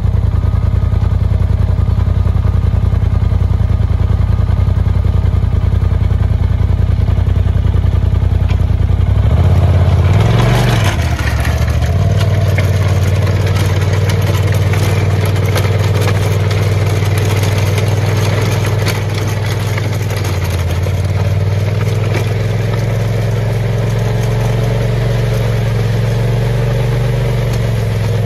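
Side-by-side UTV engine idling, then revving up briefly about ten seconds in as it pulls off. From then on it runs steadily while the towed grader's ripper teeth and blade drag through gravel, adding a gritty scraping and rattle of stones.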